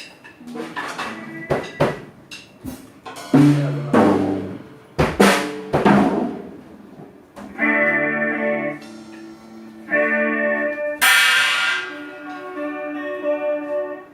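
Band sound check: loose drum kit hits, snare, toms and cymbal crashes, not in a steady groove, then held chords from a keyboard or organ from about halfway, with a cymbal crash over them.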